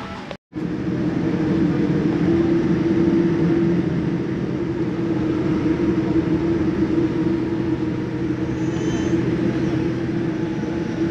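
Steady airliner cabin drone with a constant low hum, after a brief drop to silence about half a second in.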